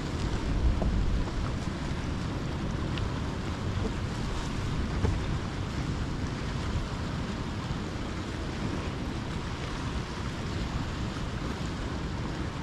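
Wind noise on the microphone over the steady wash of sea waves on the rocks.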